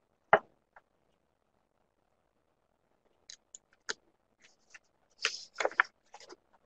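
A single sharp click, then after a short quiet stretch a scatter of faint clicks and brief rustles, picked up by a computer microphone.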